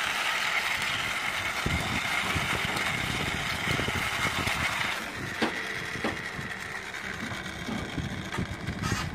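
Plastic toy car wheels rolling and scraping along a rough concrete ledge as it is pushed by hand: a steady grinding whir that weakens about five seconds in, with irregular low rumbles underneath.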